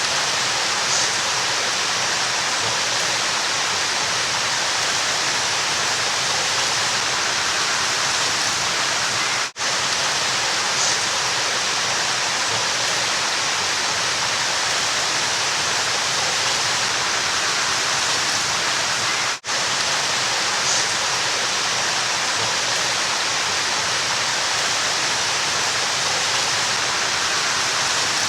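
Steady rushing of a river, an even wash of water noise. It drops out for a split second twice, about ten seconds apart, where the recording loops.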